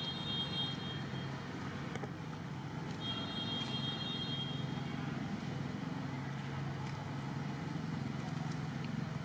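A steady low hum like a motor vehicle's engine running nearby. A high, steady whine ends about a second in and returns for about two seconds from three seconds in.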